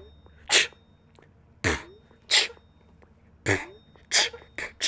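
Mouth percussion beatboxed into a cupped fist: sharp, breathy snare-like hits and a couple of deep kick-drum thumps, roughly one every half-second to second, coming faster near the end.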